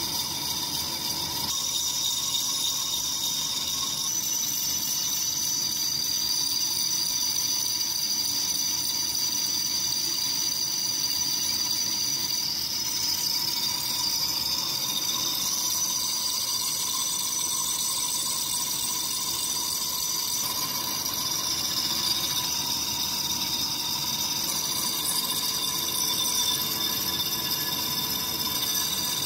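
Metal lathe running steadily, with a continuous high-pitched whine over a hiss.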